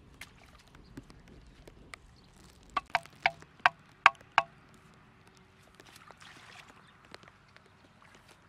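A wooden stake being hammered into muddy ground by hand: about seven sharp knocks in quick succession, roughly three a second, each with a short woody ring. Scattered light clicks before and after, and a brief soft splash of water a little later.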